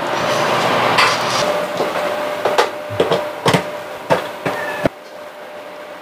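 Kitchen handling sounds: a series of about seven sharp clicks and knocks as things on the counter are handled. They come after a steady hiss that fades out in the first second and a half.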